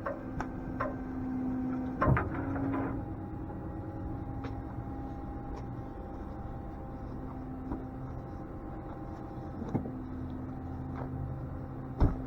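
Tow truck running with a steady mechanical hum from its engine and hydraulics while the rollback bed is worked to ease a locked car on wheel skates off the back, with sharp metallic clunks about two seconds in, near ten seconds and again at the very end.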